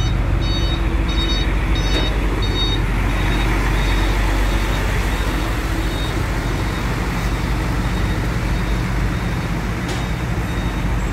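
Heavy diesel machinery running with a steady low rumble, and a repeating high electronic warning beeper going a few times a second that fades out after about three seconds.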